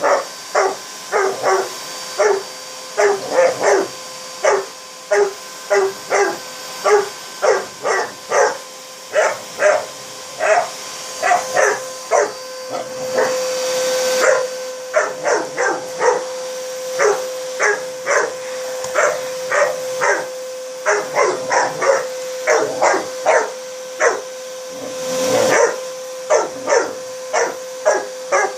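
A four-month-old Cane Corso puppy barking over and over, roughly two barks a second, at a running vacuum cleaner. The vacuum's steady hum runs underneath and swells into a louder rush twice, about halfway through and near the end, when the barking briefly stops.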